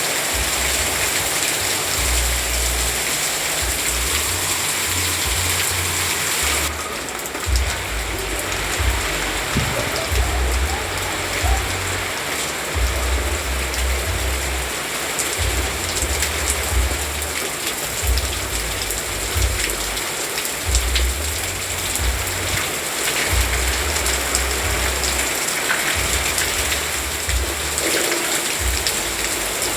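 Steady rain falling, an even hiss of drops on surfaces, with a low rumble coming and going underneath.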